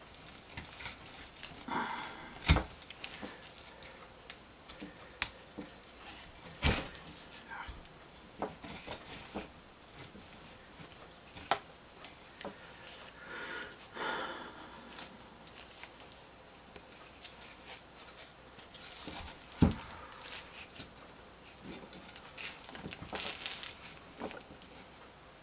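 Hay twine rustling as it is threaded and pulled tight around a billhook handle, with scattered small handling clicks. Three sharper knocks stand out, a couple of seconds in, about seven seconds in and near twenty seconds in.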